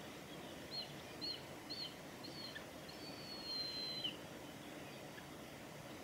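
A juvenile mountain hawk-eagle calling with thin high whistles: four short notes about two a second, then a longer drawn-out whistle that drops away at its end, about four seconds in.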